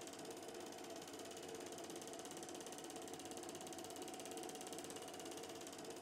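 Film projector running, its mechanism making a steady, rapid, even clatter.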